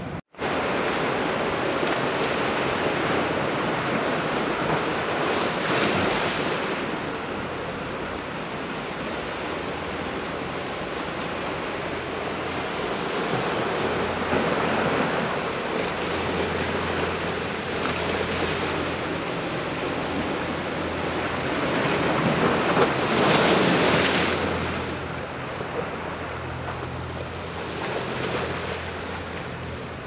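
Wind on the microphone and waves washing on the shore, a steady rushing that swells louder twice. A low steady drone runs underneath from about a third of the way in until near the end.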